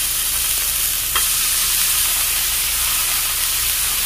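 Thick slabs of hanwoo beef sizzling steadily on a hot round grill plate, with a single small pop about a second in.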